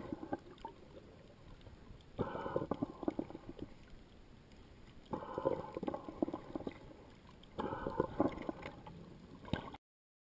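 Water gurgling and crackling as heard by an underwater camera, coming in four surges about every two and a half seconds. The sound cuts off abruptly near the end.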